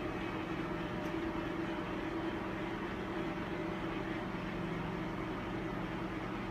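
Steady low machine hum with a few held low tones, unchanging throughout, from running equipment such as the gamma camera's electronics and cooling or the room ventilation.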